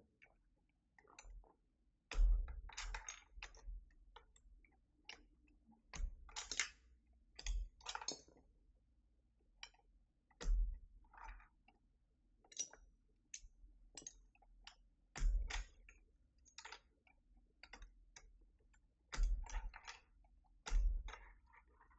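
Keycaps being swapped on a Keychron V6 Max mechanical keyboard: irregular plastic clicks and snaps, a few of them louder with a dull knock.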